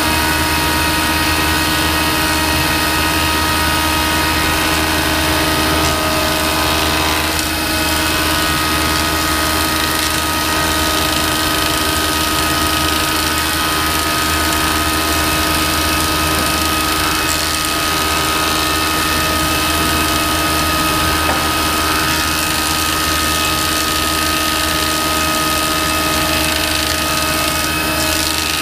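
Woodworking machine running steadily: an even, continuous machine noise with a steady high whine over a lower hum.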